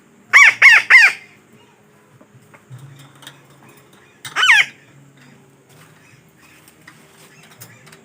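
Betet parakeet (Psittacula) calling: three loud harsh squawks in quick succession, then a single squawk about four seconds in.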